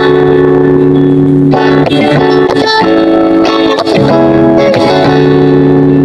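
Background music led by guitar: long held chords that change every second or two, steady and loud.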